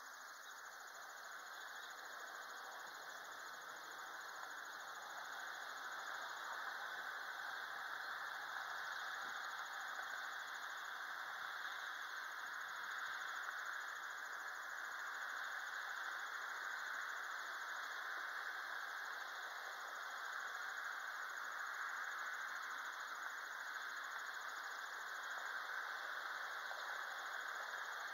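Steady, even hiss of outdoor background noise with no distinct events, slowly growing louder.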